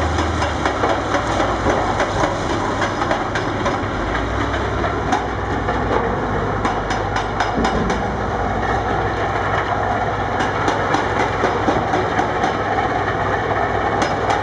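A hydraulic breaker on an excavator pounding rock, a dense clatter of sharp knocks over the steady running of heavy diesel excavator engines.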